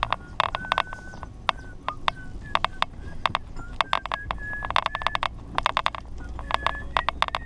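Pickup truck driving slowly over uneven grass: irregular bursts of rattling clicks and short squeaks from the cab and body, over a low, steady engine hum.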